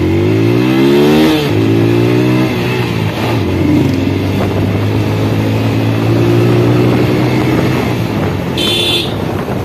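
Single-cylinder motorcycle engine pulling away, its note rising in first gear, dropping at a gear change about a second and a half in, then running at a steady cruise. A short high beep sounds near the end.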